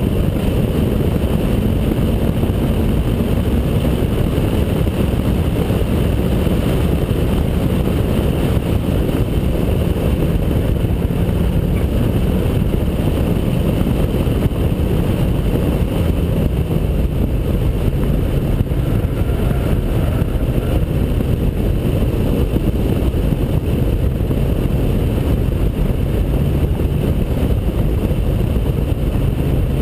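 Steady wind rush over a camera mounted outside a 2003 Honda Accord Type S at speed, with the car's 2.4-litre four-cylinder engine and exhaust droning underneath. The engine note drifts up and down with the throttle.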